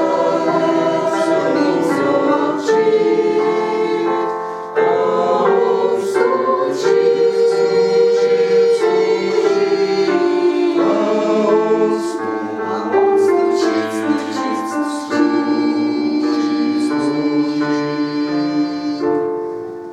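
Church choir singing a hymn in slow, held chords, the words' consonants audible between the notes, tailing off slightly at the very end.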